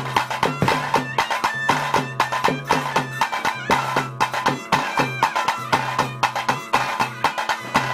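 Bhuta Kola ritual music: a reed pipe plays a melody over a steady low drone, while drums beat a quick, even rhythm.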